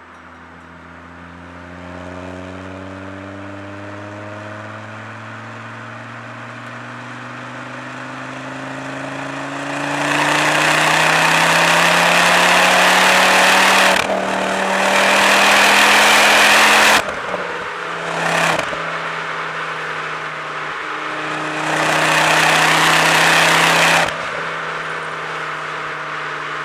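Ford Focus ST's turbocharged five-cylinder engine and Milltek resonated exhaust, heard from inside the cabin. The engine note climbs steadily, then goes loud and harsh under full throttle about ten seconds in, dips briefly for a gear change and pulls hard again. It drops off when the throttle lifts, settles to a steady cruise, and gives a second hard burst of acceleration about two-thirds of the way through.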